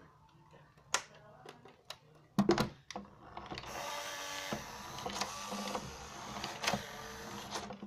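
Toy RC Porsche Cayenne police car switched on with a few clicks and a knock, then its small electric drive motor and gears whirring steadily for about four seconds before stopping near the end.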